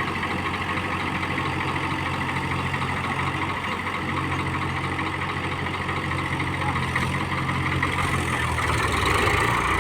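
Tractor diesel engine running steadily; its note shifts and grows a little louder near the end.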